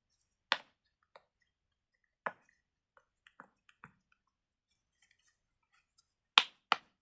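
Pop-it fidget toy bubbles being pressed: a few scattered sharp pops, some faint, then two louder pops in quick succession near the end.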